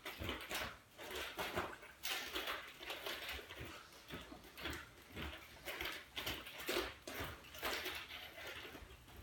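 Nunchaku being swung, making a string of swishing whooshes about one or two a second.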